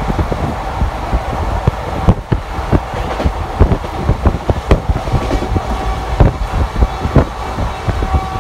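Passenger train coaches running at speed, the wheels clattering over the track in a rapid, uneven series of sharp knocks over a steady low rumble. A faint steady tone comes in near the end.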